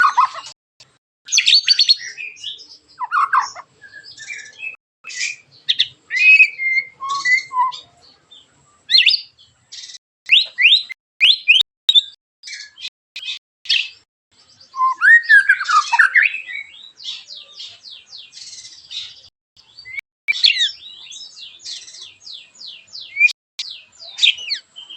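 White-rumped shama (murai batu) singing a fast, varied song of sharp whistles and quick pitch sweeps, with rapid stuttering runs of short harsh notes: the 'tembakan' volleys that bird-keepers play to provoke another shama into singing.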